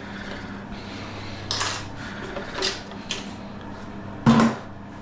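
Parts of a removed toilet flush siphon being handled: a few short clacks and clinks, the loudest near the end, over a steady low hum.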